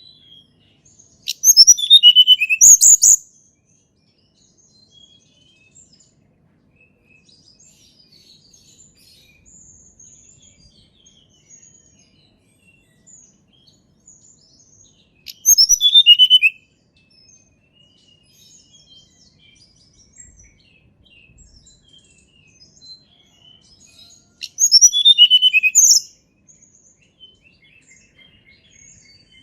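A tledekan gunung songbird singing three loud, high-pitched phrases about ten seconds apart, each a quick run of falling whistled notes. Faint chirps continue between the phrases.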